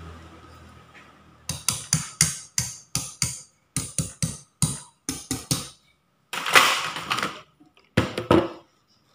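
Wire whisk clinking against a stainless steel bowl as egg-yolk batter is beaten by hand: a quick run of sharp clinks about three a second, with a rougher stretch of about a second past the middle and a few more clinks near the end.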